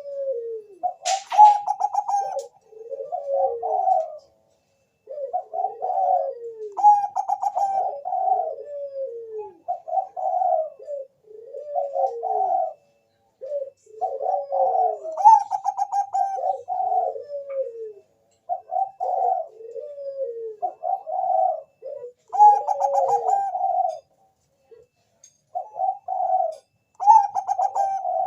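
Zebra dove (perkutut, Bangkok strain) cooing: repeated phrases of soft, rolling coos that fall in pitch, each phrase lasting a few seconds with short pauses between. A brief click sounds about a second in.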